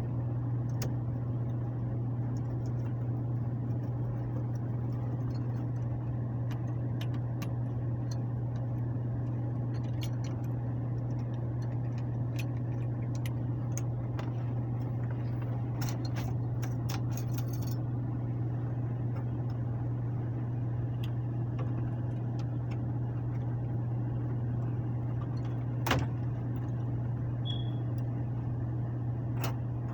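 Air handler blower motor running with a steady low hum. Scattered small metallic clicks and taps sound over it, with one louder knock near the end.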